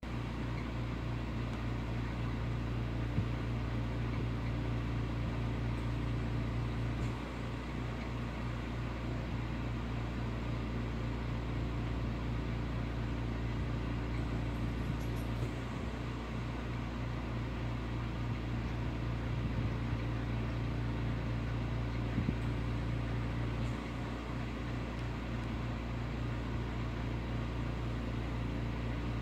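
A steady low hum with several fixed pitches, running unchanged, with no speech audible.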